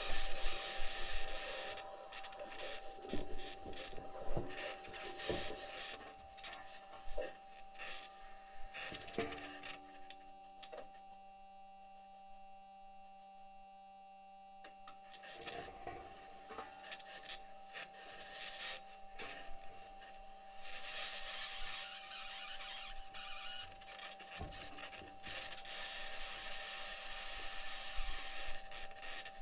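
Perseverance Mars rover's wheels and suspension grinding and scraping as it drives over the Martian surface, with a high-pitched scratching noise and steady humming tones underneath. The grinding drops away about ten seconds in, leaving only the tones, then returns around fifteen seconds and is loudest in the last third.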